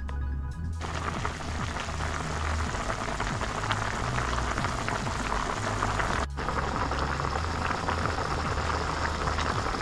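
Zucchini, carrot and potato soup boiling hard in a pan: a dense bubbling crackle that sets in about a second in, with a brief break about six seconds in. Background music with a low bass line plays underneath.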